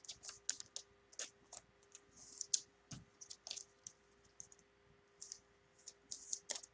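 Trading cards being handled after opening: light, irregular clicks and short, soft rustles.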